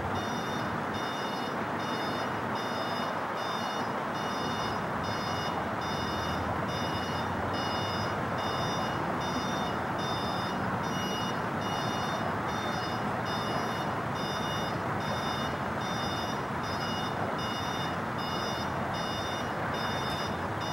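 Airbus A330 jet airliner on landing approach, its engines making a steady rush of jet noise. A separate high-pitched beeping repeats about twice a second.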